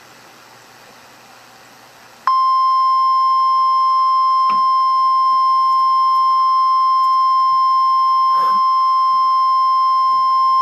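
Weather-alert warning alarm tone, the single steady 1050-hertz tone of NOAA Weather Radio, starting abruptly after about two seconds of faint hiss and held unbroken. It signals that a warning message is about to be read.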